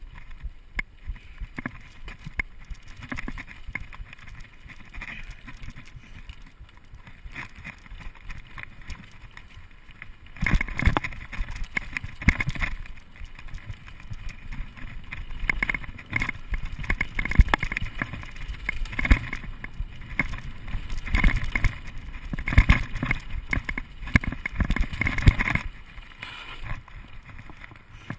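Mountain bike with a suspension fork rattling and clattering over a rough dirt trail at speed. The clatter is moderate at first, turns to loud, irregular knocks and bangs about ten seconds in, and eases off near the end.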